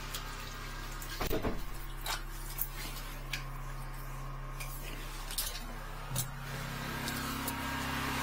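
Steady low hum of a running high-pressure drain-jetting machine, with scattered clicks and knocks from the hose and fittings being handled in a small tiled bathroom; a short rattling clatter about a second in is the loudest moment.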